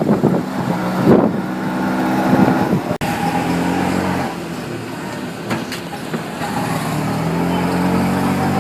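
Road traffic with a vehicle engine running under load; its note holds steady, then climbs gradually as the vehicle accelerates, several times over. The sound cuts out for an instant about three seconds in.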